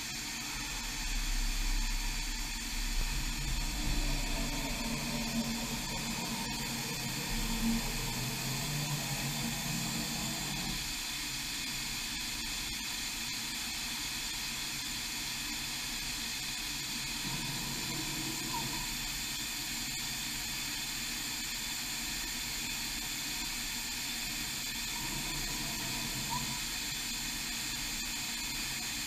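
Huron KX30 five-axis machining centre's axis drives humming as its tilting rotary table swings over, during an RTCP pivot-point calibration. The low hum dies away about ten seconds in and comes back weakly later, over a steady hiss.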